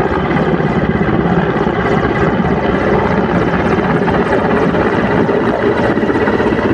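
Mi-17 helicopter coming in low to land, its main rotor beating in a fast, even chop with a faint steady high whine from the turbines.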